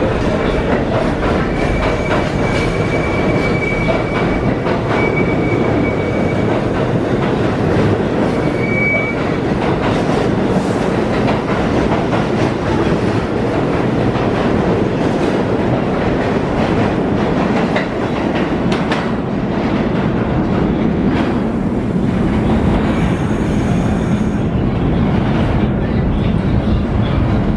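New York City subway train running through the station, a loud steady rumble and clatter of wheels on rail, with a thin high wheel squeal in the first few seconds.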